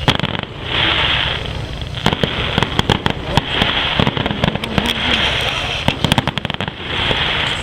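Fireworks going off: sharp bangs and rapid runs of crackling pops, thickest about two to three seconds in and again near the end, with stretches of hiss between them.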